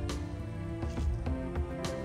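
Instrumental background music: sustained melodic notes over a regular percussive beat.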